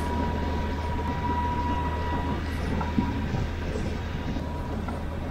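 Sailboat's inboard engine running steadily while the boat cruises under motor: a low drone with a thin ringing tone over it, and a steady wash of wind and water. The ringing tone fades out a little under halfway through.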